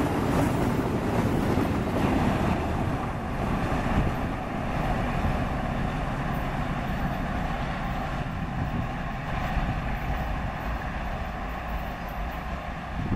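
Freight train of tank wagons rolling past close by, a loud rumble of wheels on the rails, which drops about two and a half seconds in to a quieter, steady rumble of a distant diesel-hauled tank train, with wind on the microphone.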